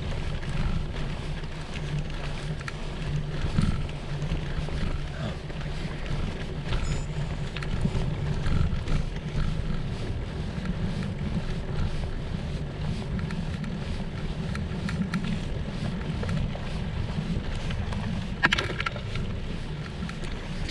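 Steady low rumble and wind buffeting on the microphone of a GoPro mounted on a moving Bombtrack Hook gravel bike, with faint clicks and rattles from the ride.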